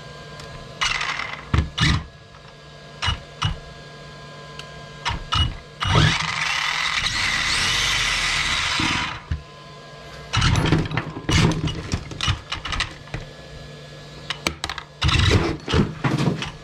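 ECX Torment RC truck's brushless motor and drivetrain spinning up on the bench: a loud whir lasting about three seconds, starting about six seconds in. Clicks and knocks from handling the truck come before and after it.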